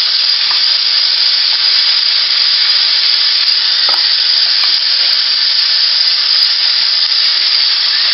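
Kitchen faucet running full into a metal sink as hands are washed under the stream: a loud, steady splashing of water.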